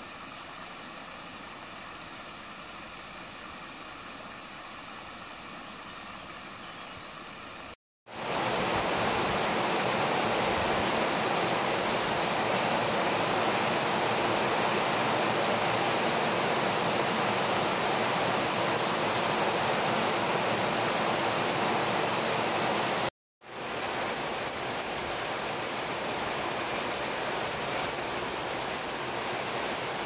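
A shallow stream running over stones, a steady rush of water. About eight seconds in it gives way to heavy rain, a louder steady hiss that breaks off for a moment near the end and comes back a little quieter.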